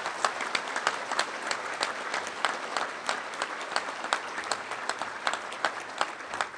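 Audience applauding, a steady mass of clapping with separate sharp claps from close by standing out over it.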